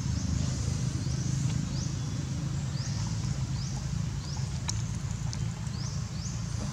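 Outdoor ambience: a steady low rumble with a short, high, rising chirp repeating about once a second from a calling bird or insect, and a few faint clicks.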